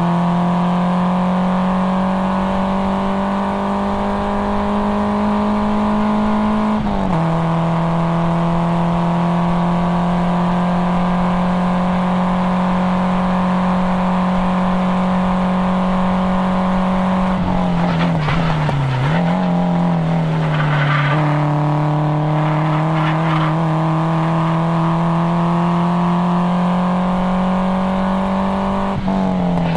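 Nissan 240SX's four-cylinder KA24DE engine, through an aftermarket cat-back exhaust, pulls hard under load, with the revs climbing slowly. About seven seconds in the revs drop sharply at a gear change. A little past halfway the revs fall and waver while the tyres squeal briefly through a corner, then the engine pulls again, with another sharp drop in revs near the end.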